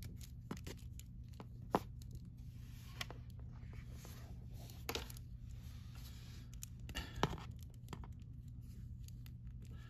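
Hands handling a plastic Hasbro Power Rangers Lightning Collection Dino Charge Green Ranger action figure: faint rubbing and a few sharp clicks as its limbs are moved, over a low steady hum.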